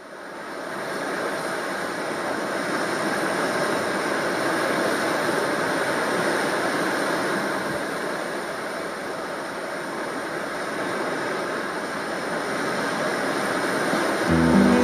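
Steady rushing noise that slowly swells and eases. Acoustic guitar music comes in near the end.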